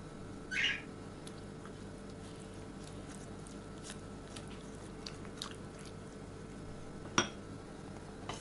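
Silicone basting brush dabbing sauce onto a roasted pork knuckle: soft wet dabs and a short scrape near the start, a few faint ticks, then a sharp clink about seven seconds in as the brush is set into the glass sauce bowl. A steady faint hum runs underneath.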